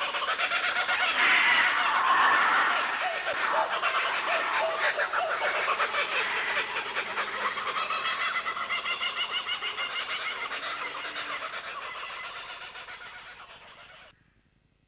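Dense, rapidly pulsing accompaniment sound for a dance piece, fading over the last few seconds and cutting off suddenly near the end.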